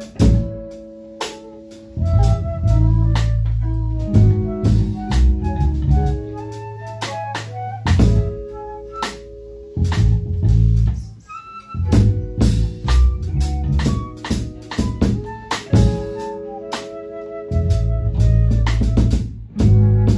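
Live band music: a drum kit playing a steady beat under bass and melodic pitched instruments.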